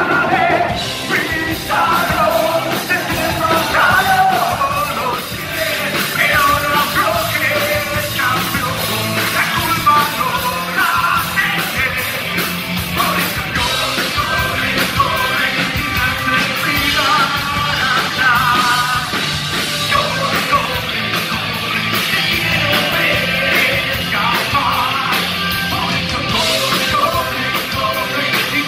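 Live rock band playing: electric guitar, bass guitar and a drum kit, with a male singer shouting and singing lead vocals over them.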